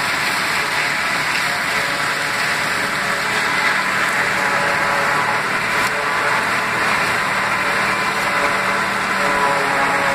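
John Deere 2755 tractor's four-cylinder diesel running steadily under load while driving a forage harvester that chops dry corn stalks, a loud continuous mix of engine and machinery noise.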